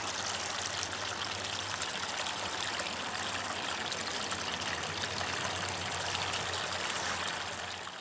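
Shallow, rocky creek trickling over stones, a steady water sound with a low steady hum underneath, fading out near the end.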